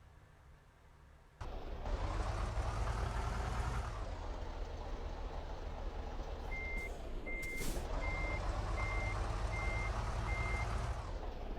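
Heavy vehicles passing close by, engines and tyres loud, starting suddenly about a second and a half in and swelling twice. In the middle a high single-tone beeper sounds six times at an even pace, with a sharp hiss near the second beep.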